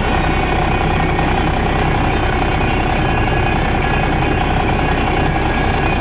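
Heavy diesel farm machinery running steadily, with a constant engine drone and mechanical hum.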